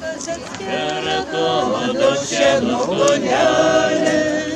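A crowd of many voices singing together in chorus.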